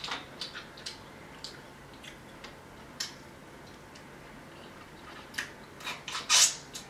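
Close-miked eating sounds of a person eating seafood by hand: scattered mouth clicks, smacks and sucking noises while chewing, with a louder burst of noise near the end.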